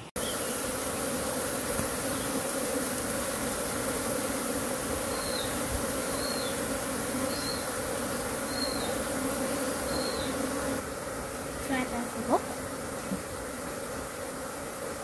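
Steady insect buzzing, like a swarm of bees or flies, with a high hiss above it. Five short high chirps come in the middle, and the buzz gets a little quieter about two-thirds of the way through.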